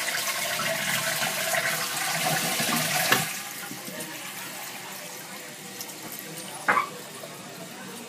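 Crane Elite toilet tank flushing: water rushes out through the open flush valve, then a sharp knock about three seconds in as the red flapper drops shut. The fill valve then refills the tank with a quieter steady hiss, and a brief knock comes near the end.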